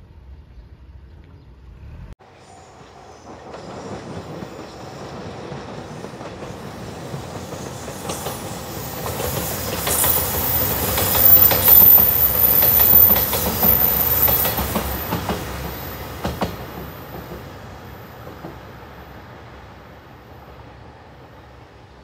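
A three-car JR Shikoku 2700 series diesel express train going by. Its rumble builds, peaks about ten to fifteen seconds in with a quick run of wheel clicks over the rail joints, then fades away.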